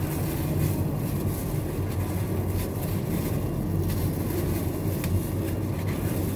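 A steady low mechanical hum, with a few faint knocks of a knife cutting boneless beef on a board.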